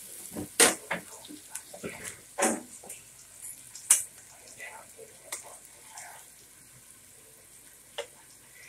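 Slotted spatula scraping and knocking against a stainless steel skillet as cubes of fresh cheese are turned, with sharp clacks about half a second and four seconds in, over a faint sizzle of the cheese frying.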